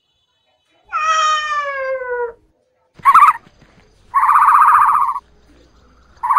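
A kitten meows once, a long call that falls steadily in pitch. A few seconds later comes a louder, buzzy, rapidly pulsing animal call, which starts again near the end.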